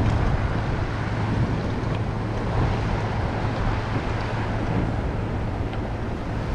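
Steady wind and wave noise, with wind rushing over the microphone and a constant low hum underneath.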